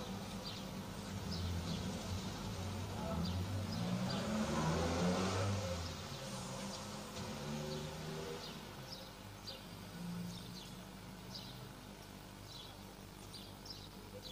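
Outdoor ambience of short, high bird chirps repeating every second or so over a low murmur of distant voices, which swells about four to six seconds in and then fades.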